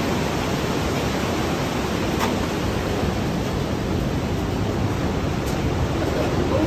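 Partnach river rushing through a narrow rock gorge as a steady, even noise of white water.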